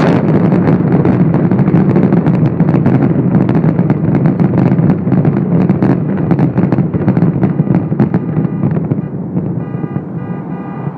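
Fireworks going off in a dense barrage: many rapid pops and crackles over a continuous low rumble of bursts. The barrage eases slightly near the end, when a pitched tone comes in over it.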